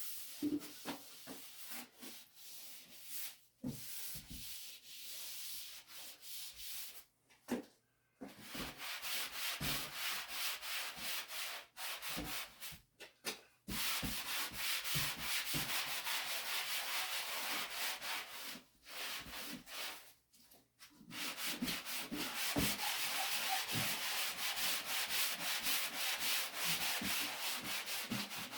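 Damp drywall sponge rubbing over dried joint compound on a wall: wet sanding, a scrubbing hiss in quick back-and-forth strokes, stopping briefly a few times.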